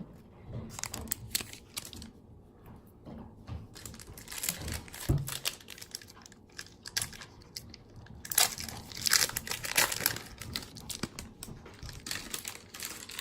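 Baseball card pack wrappers crinkling and being torn open, with cards being handled. The crackling is busiest around the middle of the stretch.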